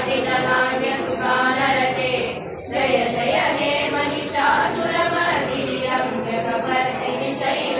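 Group of girls and women singing a devotional hymn together in unison, a continuous chanted melody.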